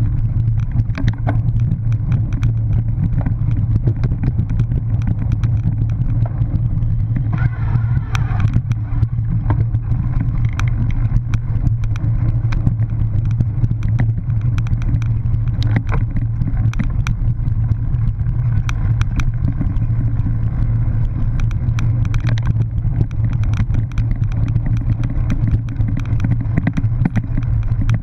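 Cyclocross bike ridden fast over bumpy grass, heard from a camera mounted on the bike or rider: a steady low rumble with frequent rattling and clattering knocks as the bike jolts over the ground.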